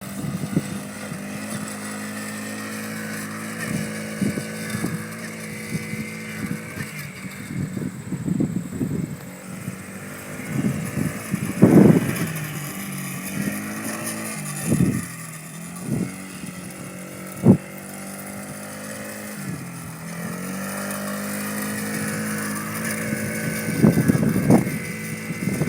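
Polaris 50 youth ATV's small engine running steadily, its pitch dropping and picking up again a couple of times, with several short loud knocks and bursts of noise over it and a louder noisy stretch near the end.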